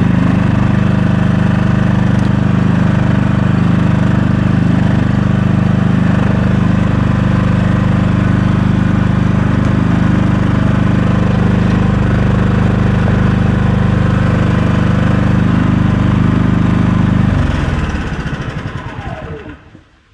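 Champion 5500 dual-fuel inverter generator's engine running steadily on propane. About 17 seconds in it shuts down, and the engine note falls in pitch as it winds to a stop.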